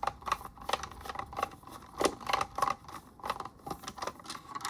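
A screwdriver turning a deep-set screw out of a Waterpik flosser's plastic housing: a run of short clicks, about four or five a second.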